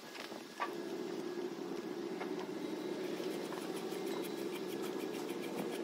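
A ratchet wrench clicking as the gear-lube drain and vent plugs are tightened on an outboard's lower unit, with the clicks running quickly through the middle and later part. A steady low hum runs underneath.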